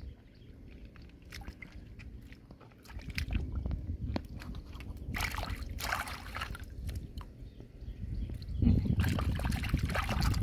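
Water splashing and sloshing in a shallow tide pool as hands rinse clams, in two bursts of splashing, one about five seconds in and a louder one near the end, with small clicks of shell against stone between them.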